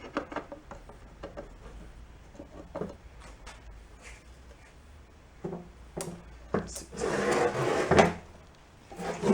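Small engine parts and an engine case being handled on a workbench: scattered clicks and knocks, a scraping slide from about 7 to 8 seconds in, and a sharp knock near the end.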